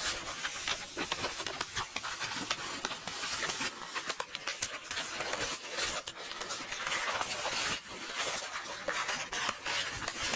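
Paper book pages rustling and being turned, a continuous crackling rustle with many quick crisp snaps throughout.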